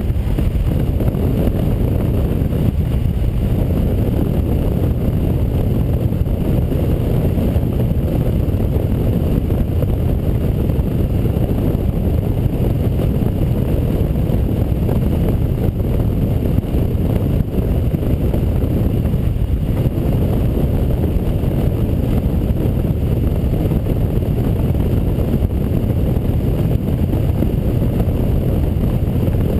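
Wind noise on the camera microphone and the low drone of a KTM 990 Adventure's V-twin as the motorcycle cruises at a steady speed. The sound is an even, unbroken rumble with no change in pace.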